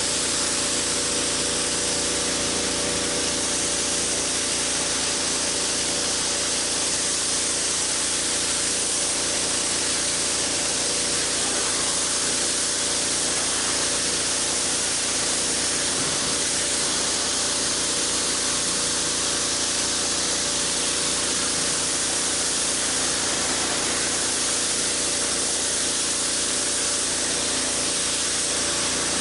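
High-pressure water spraying from a pressure washer's water broom onto a concrete slab, a loud steady hiss without a break. The pressure washer hums steadily underneath.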